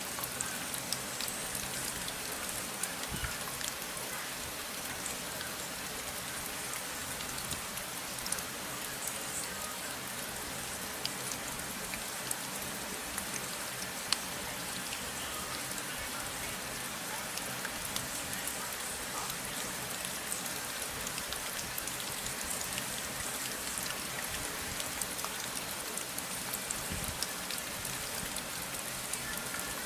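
Steady rain falling, an even hiss with many small drop ticks and the odd sharper patter.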